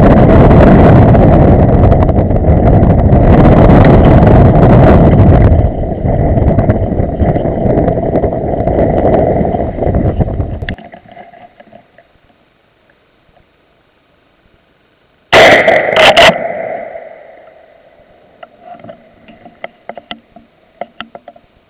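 Wind buffeting the microphone of a gun-mounted camera for about the first half, cutting off abruptly. Later, a loud volley of gunfire: two or three cracks within about a second, the report dying away, followed by faint clicks.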